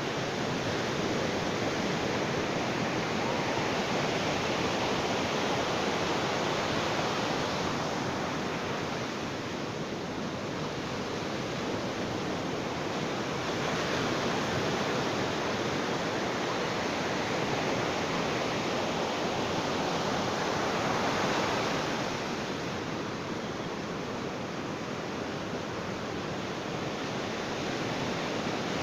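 Ocean waves breaking on a beach: a continuous surf wash that swells and ebbs slowly, a surge every several seconds.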